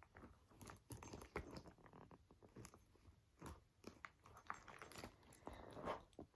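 Faint, irregular clicks and rustles of a handbag and the things packed inside it being handled as its middle compartment is opened.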